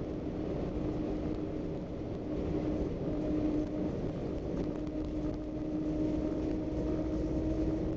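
Scania Irizar Century coach driving, heard from inside the cabin: a steady diesel engine drone with a held hum over road rumble.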